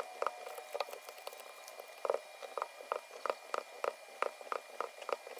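Rubber logo stamp tapped over and over onto an ink pad and cardboard earring cards, a quick, uneven run of soft taps about three a second.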